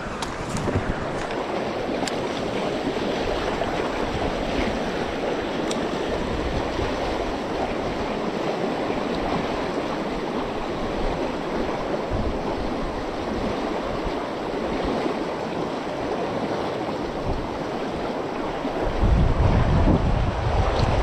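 Fast-flowing stream rushing through shallow rapids in a steady hiss of water, with wind buffeting the microphone in a low rumble near the end.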